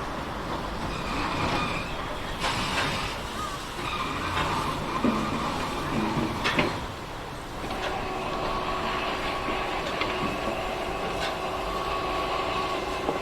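Train at a station: a steady rumble with a few clanks and knocks, then a steady hum setting in about eight seconds in.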